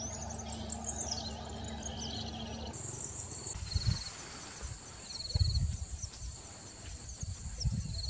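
Short high bird chirps and gliding whistles. After a cut they give way to a steady high insect buzz with short trills every second or two, and a few low rumbles of wind on the microphone.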